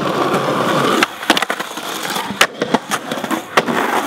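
Skateboard wheels rolling on rough pavement, then a string of sharp board clacks and knocks on concrete at irregular intervals.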